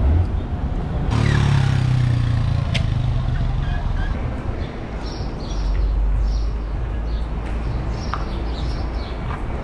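Street traffic: a motor vehicle's engine runs loudly close by for a couple of seconds, then a deeper low rumble of traffic carries on, with a few faint high chirps.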